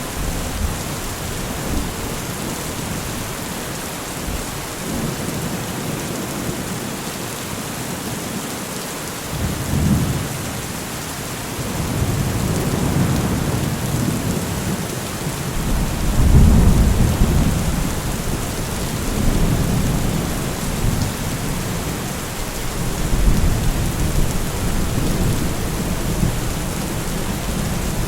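Steady rain with rolling thunder: a low rumble swells about ten seconds in, grows from about twelve seconds, peaks around sixteen to seventeen seconds and rolls on again near the end.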